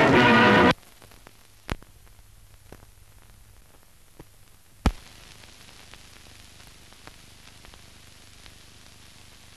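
A brief end of ident music, then the faint hiss and crackle of an old newsreel's optical film soundtrack, with scattered clicks and two sharper pops.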